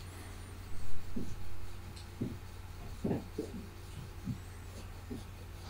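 Cotton-wool swab rubbing over the varnished surface of an oil painting during a surface clean, with a few short, faint squeaks. A low, steady electrical hum runs underneath.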